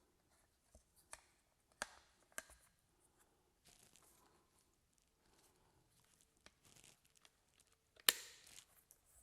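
Plastic speaker spacer being handled and fitted over a new 6x9 car door speaker: faint scattered clicks and rustling, then one sharp plastic snap about eight seconds in as the spacer's clips catch.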